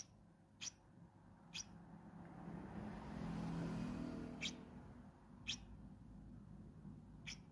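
A small bird giving short, sharp, high-pitched peeping calls, one about every second, six in all with a pause in the middle. Partway through, a low rumble swells and fades under the calls.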